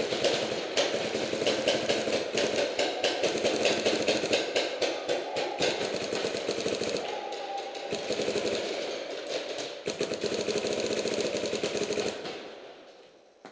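Paintball markers firing in long rapid strings, many shots a second, the firing dying away near the end.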